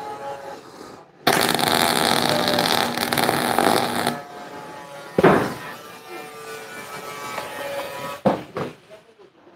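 MIG welder arc crackling and spitting as a bead is laid on a worn bus door hinge, one burst of about three seconds starting about a second in. A sharp knock follows at about five seconds, and two quick knocks come near the end.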